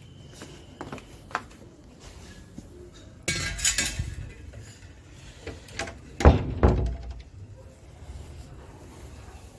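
Stainless steel bowl of water clinking and knocking as it is carried and handled, with a short noisy rush a little after three seconds and two heavy thumps about six seconds in.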